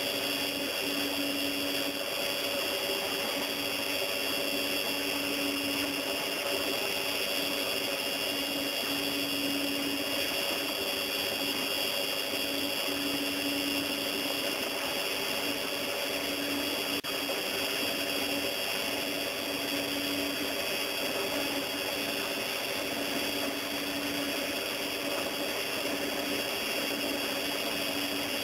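Electric mixer running steadily, its twin beaters whirring through thick egg-cake batter.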